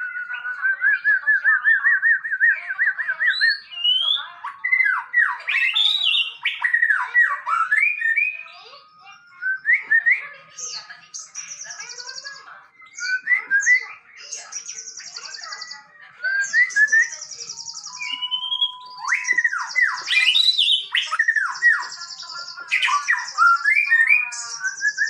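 Male white-rumped shama singing a long, varied song. It opens with a wavering trilled whistle, then runs quick gliding whistled phrases mixed with repeated harsh, buzzy high notes, with short pauses between phrases.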